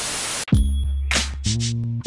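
Static hiss that cuts off about half a second in, then the show's intro music starts with deep bass notes and sharp drum hits.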